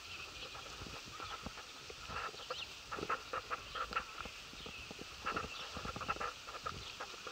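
Footsteps of someone walking on an outdoor path: irregular light crunches and knocks, with a few faint high chirps.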